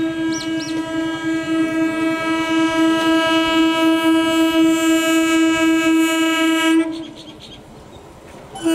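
Indian Railways EMU local train sounding its horn: one long steady blast that stops about seven seconds in, then a second blast starts near the end.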